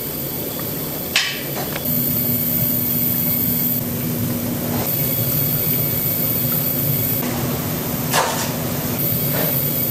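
Kitchen noise: a steady hum with two sharp knocks, one about a second in and one near the end, and a few fainter clicks between.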